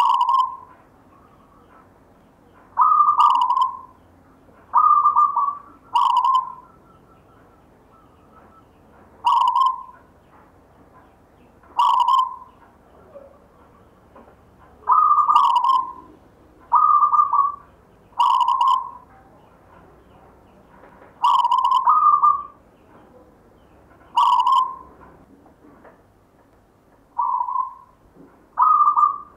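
Zebra dove (perkutut) cooing: a series of short, rhythmic phrases repeated every one to three seconds, sometimes two in quick succession, with brief pauses between.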